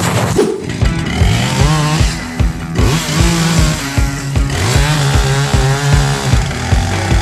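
A chainsaw cutting wood, mixed with background music that has a steady beat.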